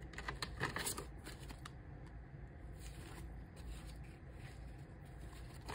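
Paper banknotes rustling and flicking in the hands as a stack of bills is pulled out of a clear plastic binder pocket and counted, with a cluster of crisp rustles in the first second, then softer handling.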